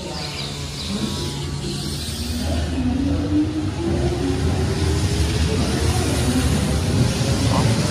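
Keihan 8000-series electric train pulling out of the station, its motor whine rising steadily in pitch as it accelerates, over a growing rumble of wheels on rail.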